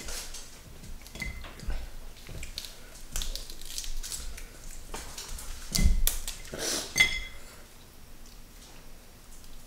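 Eating at the table: hands handling lettuce leaves and food, chewing, and small clicks of dishes and cutlery. Two louder clinks of dishes come about six and seven seconds in, the second ringing briefly.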